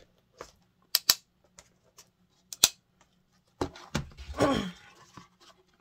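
Small craft magnets clicking sharply: three clicks in the first three seconds, then a few softer knocks, as they are pulled off one pattern and snapped onto another. A short hum of a voice, falling in pitch, comes near the end.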